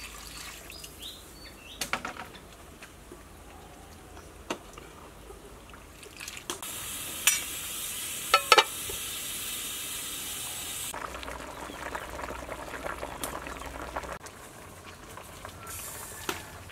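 Steel pot of bamboo shoots heating over a wood fire: water poured in from a jug at the start, then a steady bubbling and hissing of the pot coming to a boil, with a few sharp metallic clinks in the middle.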